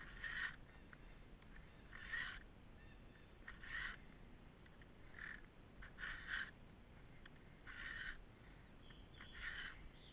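Chainsaw chain being hand-filed with a PFERD Chain Sharp CS-X filing guide: seven rasping file strokes, about one every second and a half, as its round files sharpen a cutter and its flat file lowers the depth gauge in the same stroke.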